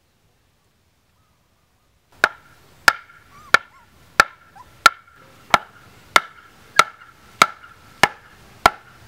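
Wooden stake being driven into the ground with a wooden club: eleven sharp, evenly spaced knocks, about three every two seconds, starting about two seconds in after near silence. A faint steady high tone runs underneath the knocks.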